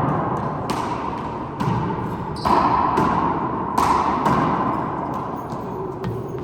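A handball being struck by hand and smacking off the walls of an enclosed four-wall court during a rally: about six sharp smacks roughly a second apart, three of them loudest, each ringing on in the court's echo.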